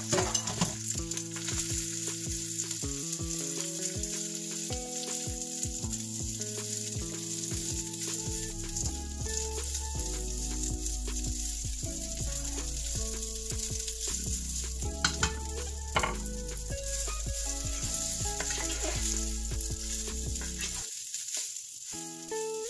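Leftover cooked rice sizzling in hot garlic oil in a nonstick frying pan as it is stirred and tossed with a wooden spatula. Background music plays over it, with a bass line that comes in about nine seconds in and drops out near the end.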